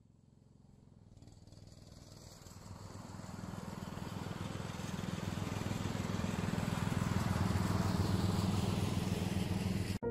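Ride-on lawn mower engine running and getting steadily louder as the mower approaches, then cut off abruptly near the end.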